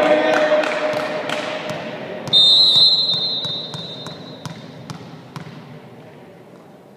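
Referee's whistle: a single high blast about two seconds in, lasting a second or so, the loudest sound here, signalling the serve. Voices and shouting die away before it, and a ball thuds on the hall floor now and then.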